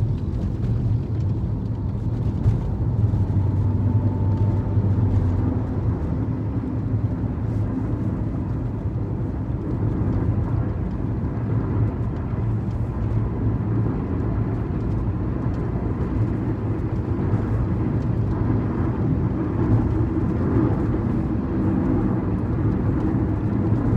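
Steady low rumble of tyre and engine noise inside a car's cabin while driving along a highway.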